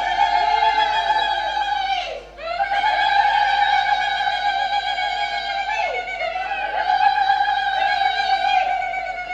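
A high woman's voice holding long, steady vocal notes, with a short break about two seconds in and a downward glide in pitch near six seconds.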